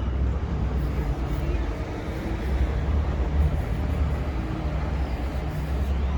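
Steady low rumble of a motor vehicle's engine running in street traffic, with road noise.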